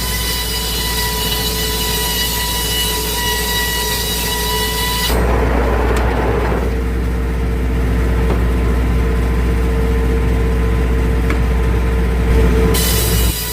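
Circular sawmill running with a steady high whine. About five seconds in the sound changes, with a brief rush of noise, to a lower, slightly louder steady hum, and the high whine comes back near the end.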